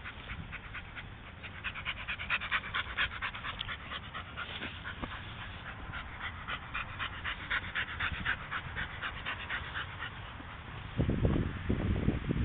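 A dog panting: quick, rhythmic breaths in and out through the open mouth, strongest through the middle. Near the end a louder low rumble comes in.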